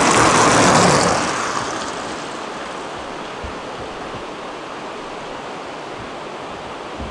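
Steady rushing of river water flowing beneath a covered bridge. It is louder for about the first second and a half, then settles to an even rush.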